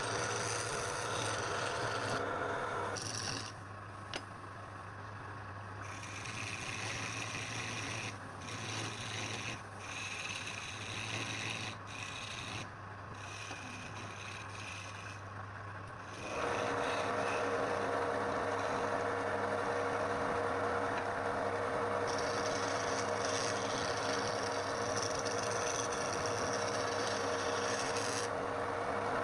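A power tool runs steadily against wood with a continuous rasping, abrasive sound over a steady motor hum. It is quieter from about three seconds in, then louder and brighter again from about sixteen seconds in.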